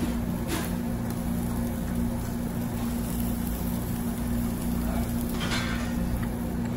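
Close chewing of a lettuce-wrapped bite of beef over a steady low mechanical hum. There is a brief rustling scrape about five and a half seconds in as metal tongs lift a piece of meat.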